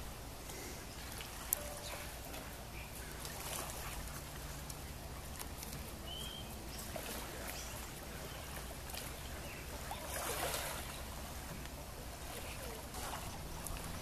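Quiet lakeside ambience: a steady low hum, faint scattered short chirps and a single sharp click about a second and a half in, with a brief swell of faint noise around ten seconds in.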